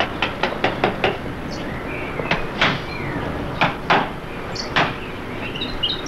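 Hammer blows on a wooden aviary frame: a quick run of about six light taps in the first second, then single knocks a second or so apart.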